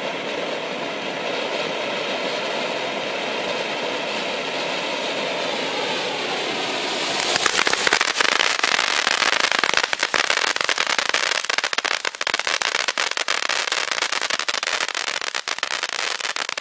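Miracle Fireworks Eliza Elephant ground fountain: a steady hissing spray of sparks, which about seven seconds in switches to a loud, dense crackling of many rapid pops from its crackle effect.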